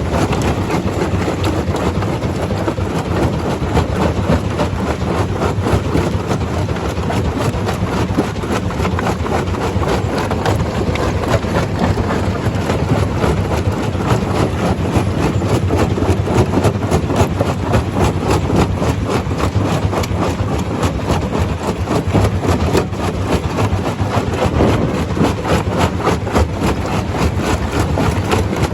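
Stone crusher machine running, a steady loud rumble with dense, rapid rattling throughout.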